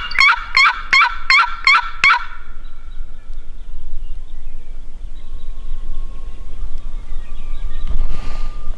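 Turkey yelping: a series of evenly spaced, pitched calls, about three a second, that stops about two seconds in, followed by quiet outdoor background.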